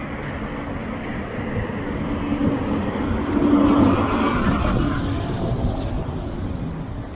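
A vehicle passing by, its noise and low hum swelling to a peak about four seconds in and then fading away.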